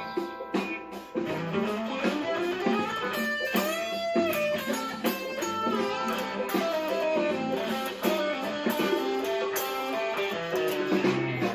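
Electric guitar played in an improvised, noodling style: a continuous run of plucked notes and phrases, with string bends gliding up in pitch around the middle.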